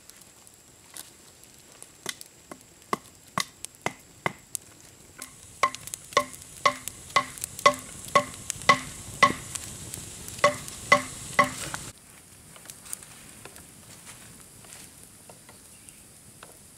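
A hand-held blade chopping at a green wooden stick to sharpen it to a point: sharp knocks, each with a short ring, sparse at first and then about two a second, stopping abruptly about three quarters of the way in.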